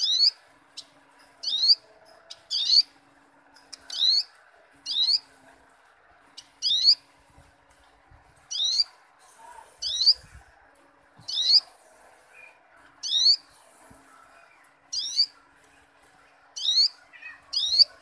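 Male olive-backed sunbird calling from its cage: a sharp, high-pitched note repeated about once a second.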